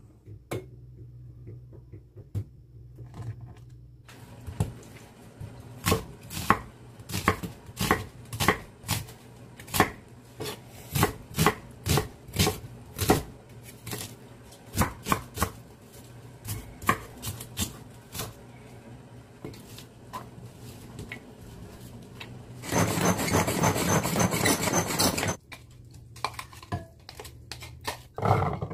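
Cleaver chopping onion on a wooden chopping board: sharp, irregular chops about one or two a second, starting about four seconds in and running until about twenty-two seconds. Then comes a loud rasping whir lasting about two and a half seconds.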